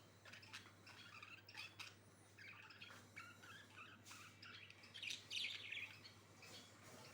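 Budgerigars chirping and twittering, faint, with a louder burst of chatter about five seconds in.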